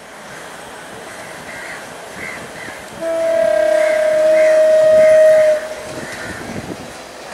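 Horn of a Sri Lanka Railways diesel multiple unit (power set) sounding one long steady blast of about two and a half seconds, about three seconds in, over the running noise of the approaching train.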